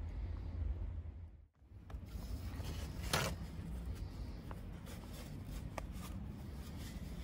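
Small kitchen handling sounds at a frying pan: light clicks of a glass jar and a silicone brush, and a sheet of paper rustling, loudest about three seconds in, over a low steady rumble.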